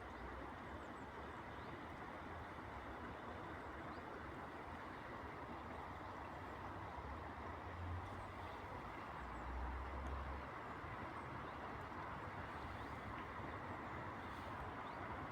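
Steady hum of distant city traffic, with brief low rumbles about eight and ten seconds in and a few faint high bird chirps.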